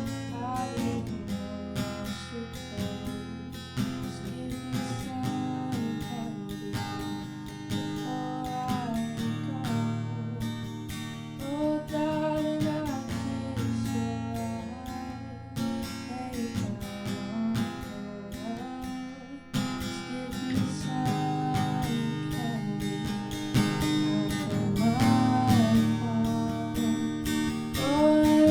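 Acoustic guitar music, strummed, playing steadily with a melodic line over the chords.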